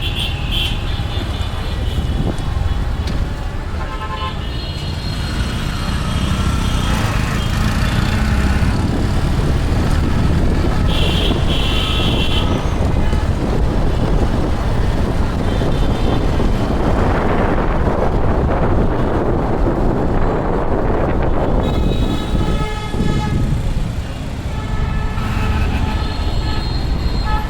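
Busy city road traffic at night: vehicles running with a constant low rumble, and repeated horn toots, in clusters near the start, around eleven seconds in and again through the last few seconds. A louder rushing noise swells for several seconds in the middle.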